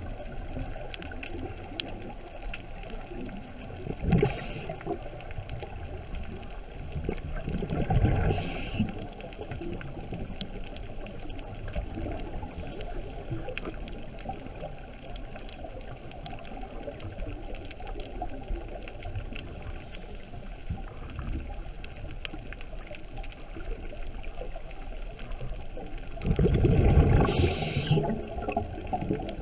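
Underwater sound from a camera in a waterproof housing: a steady muffled hiss with faint crackling clicks, broken by the gurgling rush of a scuba diver's exhaled regulator bubbles about 4 s and 8 s in, and a longer one near the end.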